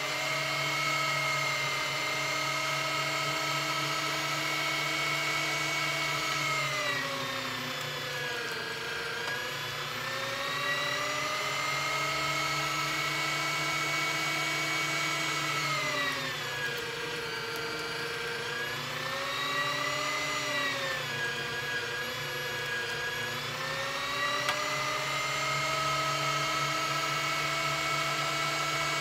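LEM electric meat grinder's motor running with a steady whine. Its pitch sags three times and climbs back as semi-frozen beef chuck is forced through the grinding plate, the motor slowing under the load.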